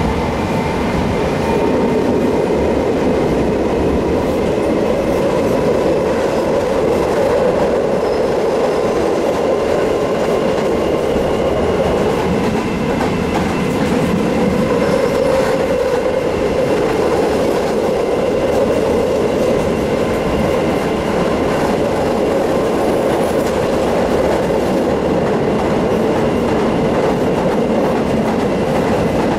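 Tatra KT8D5 articulated tram running at steady speed, heard from inside the passenger saloon: a steady rumble of wheels on the rails with faint steady whining tones above it.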